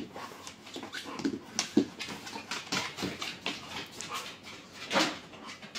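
Labrador retriever moving about with rubber ring toys on a laminate floor: scattered light clicks and knocks from its claws and the rings, with a louder knock about five seconds in.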